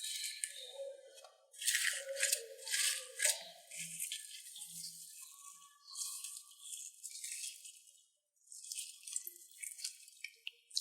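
Slime being squeezed and worked by hand, giving spells of fine crackling and clicking with short pauses between them and a few soft squelches in the first few seconds.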